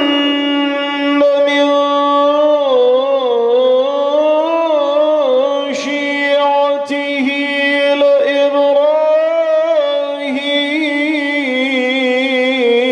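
A man chanting Quran recitation in a melodic tajweed style, drawing out one long phrase in held notes that waver and turn in ornaments.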